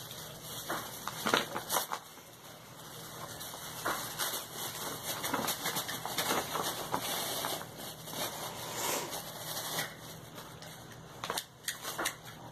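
Packaging crinkling and rustling as it is handled and pulled open, with irregular sharp crackles, the loudest about a second in.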